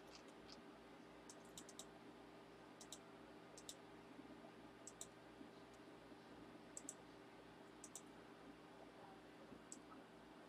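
Faint computer mouse clicks, scattered pairs of sharp clicks every second or so, over a low steady hum.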